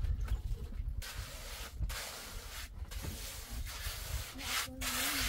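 A hand tool scraping and rubbing over cement in a series of strokes that start about a second in, each a hiss with short gaps between them.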